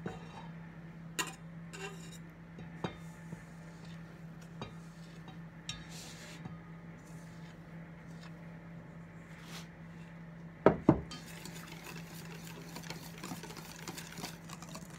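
Stainless steel mixing bowls and a wire whisk clinking now and then as flour and cocoa are tipped from one bowl into another. About eleven seconds in come two sharp metal knocks, then the whisk starts stirring through the batter. A steady low hum runs underneath.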